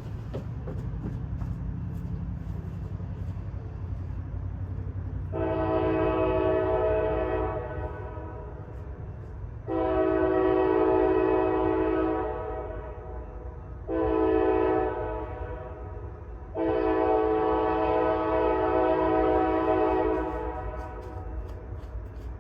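Kansas City Southern diesel locomotive sounding its multi-chime air horn in the long, long, short, long pattern of a grade-crossing warning, over the low rumble of the train.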